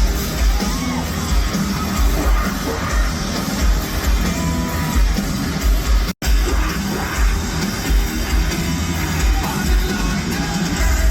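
A metal band playing live, loud with heavy pulsing bass, with crowd noise and singing in the mix. The sound drops out for an instant about six seconds in.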